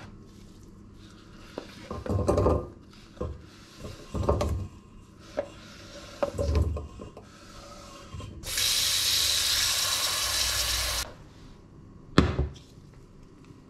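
Cut potato chunks scraped across a wooden cutting board and tipped into a stainless steel pot, in three goes of scraping with thuds as they land. Then a steady rush of tap water runs into the pot for about two and a half seconds, and near the end the pot is set down on the ceramic hob with one sharp knock.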